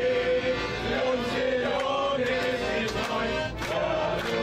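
A group of boys singing a song together, accompanied by a piano accordion.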